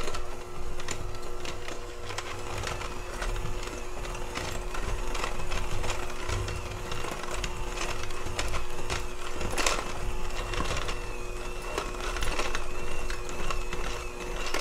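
KitchenAid electric hand mixer running steadily, its beaters creaming butter and brown sugar in a glass Pyrex bowl, with frequent clicks as the beaters knock against the glass.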